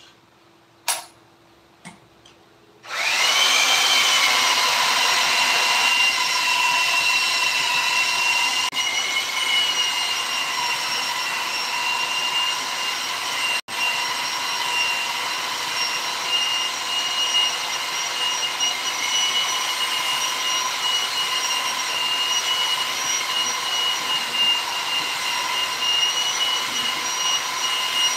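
A high-speed electric power tool switched on after a couple of clicks: its motor spins up about three seconds in, then runs steadily with a high whine.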